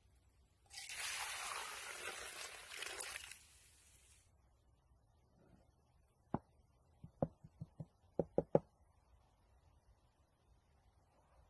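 A steady hiss for about two and a half seconds starting about a second in, then about nine sharp taps in quick succession over two seconds as a bowl is tipped and knocked against a wooden board to empty out its flour.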